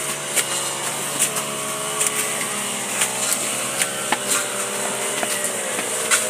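Small engine running steadily, its pitch wavering slightly, with scattered sharp clicks over it.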